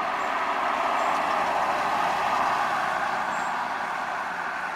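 1961 Ford Galaxie Sunliner convertible driving past and away: a steady rush of engine and tyre noise that swells over the first two seconds and then slowly fades.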